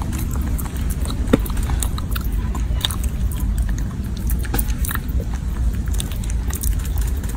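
A baby macaque biting and chewing a piece of cucumber close to the microphone: irregular small clicks and crunches over a steady low rumble.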